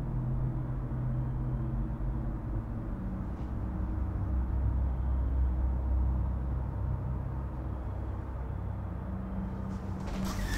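Low, steady rumbling drone with deep held tones that shift in pitch, a tension-building horror soundscape. Near the end a flurry of sharp taps begins.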